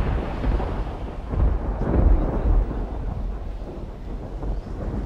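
Wind buffeting the camera microphone: a low, gusty rumble, strongest about two seconds in and easing off toward the end.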